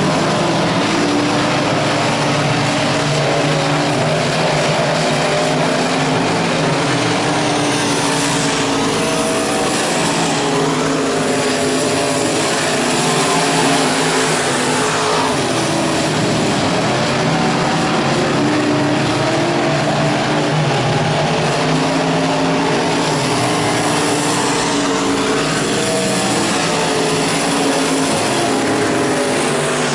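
Engines of several dirt-track limited modified race cars running hard together during a race. Their pitches shift up and down as the cars lap the oval.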